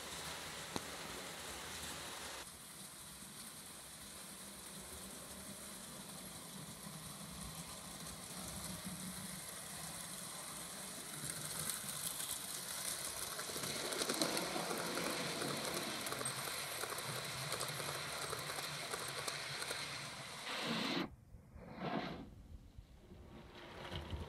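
Model railway steam locomotive hauling coaches along the track: the steady whir of its small electric motor and its wheels running on the rails, louder as it passes close about halfway through. Near the end the sound drops away sharply and comes back briefly as the train runs into a tunnel.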